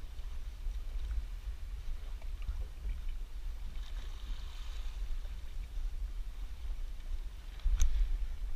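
Water and wind noise aboard a small boat at sea: a steady low rumble with faint splashing hiss, and a single sharp knock near the end.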